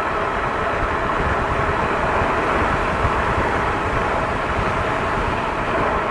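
Steady rush of wind and road noise from an Amyet S8 scooter being ridden along.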